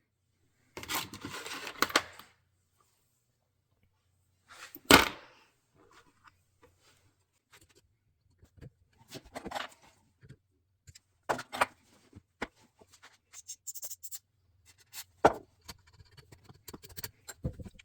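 Small metal carburetor parts being handled and set down on a workbench: a short hiss about a second in, one sharp clack about five seconds in, then scattered light clicks and taps.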